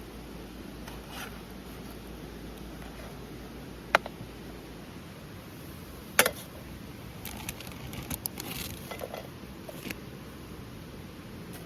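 Handling noises over a steady low background: a sharp click about four seconds in and a louder one about two seconds later, then a run of small clicks and rustles.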